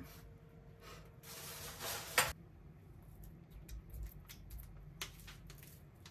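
Small kitchen handling sounds from a plastic tub of cottage cheese and a spoon over a halved melon: a short rustling scrape about a second in that ends in a sharp click just after two seconds, then a few light ticks.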